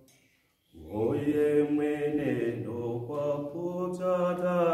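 A man singing a gospel song unaccompanied, in an African language, with long held notes that slide between pitches. The voice comes in less than a second in, after a short pause for breath.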